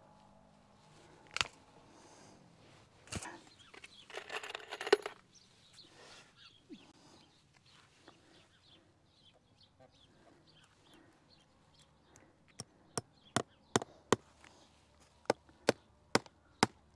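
Hammer striking a wooden fence post: sharp blows at about two and a half a second in two quick runs in the last third, driving staples to fix high-tensile brace wire at the foot of the corner post. In the first few seconds, a single click, a knock and a brief rattle.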